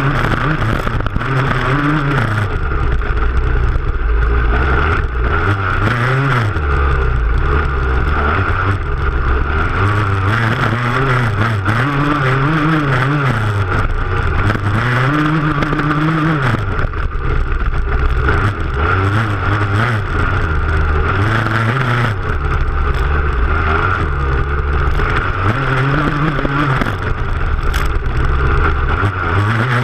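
Dirt bike engine running hard across a rough stubble field, picked up at close range from the rear fender. Its revs climb and drop over and over, every two to four seconds.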